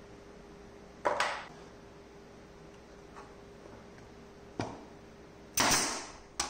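Pneumatic brad nailer firing into wood three times in the last two seconds, each a sharp clack; the loudest, in the middle, trails a short burst of air hiss. A single knock comes about a second in.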